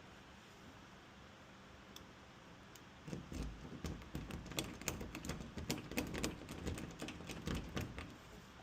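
Locksmith's tools working a door lock: after about three seconds of quiet, a run of quick, irregular small clicks and rattles with soft knocks.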